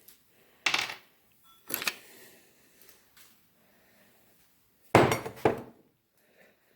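Metal engine parts clinking and knocking against each other and the workbench: two sharp clanks in the first two seconds, then a louder clatter about five seconds in.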